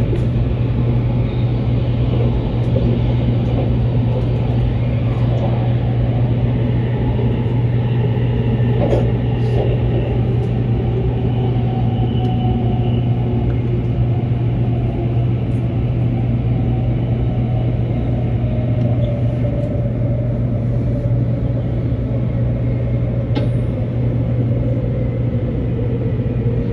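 Interior of a Taiwan High Speed Rail train running at speed: a steady, loud rumble with a constant low hum beneath it.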